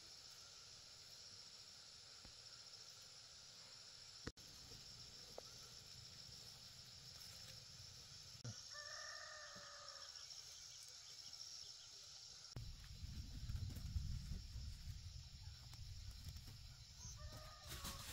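A rooster crowing faintly, one held call about eight and a half seconds in and a shorter one near the end, over otherwise quiet outdoor air. From about twelve seconds in, a low rumble rises underneath.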